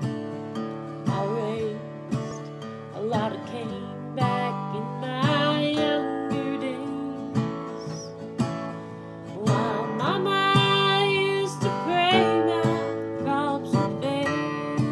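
Two acoustic guitars playing a country tune together, strummed chords under picked melody notes.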